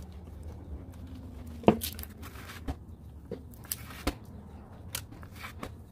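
Scattered light clicks, crinkles and knocks of gloved hands handling potting soil over a disposable aluminium foil tray, the sharpest knock about a second and a half in, over a low steady hum.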